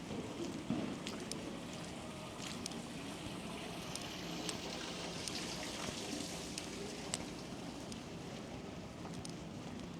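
Outdoor city street ambience in a snowstorm: a steady hiss of wind and traffic with a faint low hum. A hiss swells and fades around the middle, and scattered light ticks run through it.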